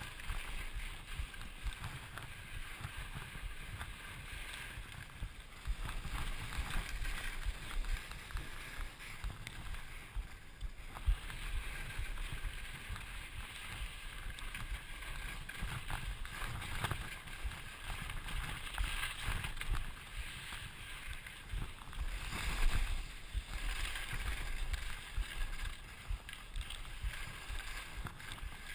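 Skis sliding and hissing through snow, with wind rumbling in gusts on the helmet camera's microphone and one louder surge about two-thirds of the way through.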